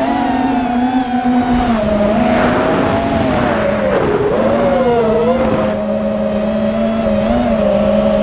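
FPV quadcopter's brushless motors and propellers whining, the pitch rising and falling with the throttle, dipping about halfway through and climbing again near the end, with rushing air noise underneath.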